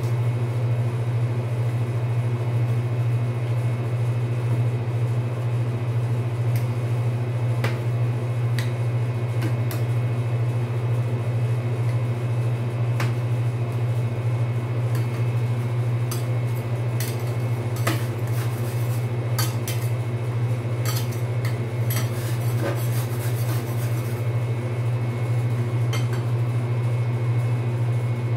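Steady low hum of a rolled-ice-cream cold plate's refrigeration unit running. Over it come scattered sharp taps and scrapes of metal spatulas on the steel plate, thickest past the middle.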